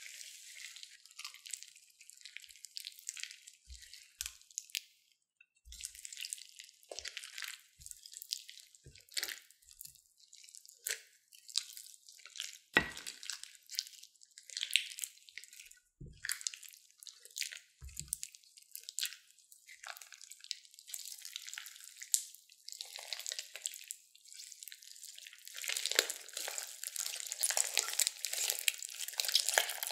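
Thick slime full of foam beads and plastic beads being stirred and folded with a spatula in a glass dish: irregular wet clicks and pops. Near the end it turns into dense, continuous crackling squelches as hands squeeze the slime.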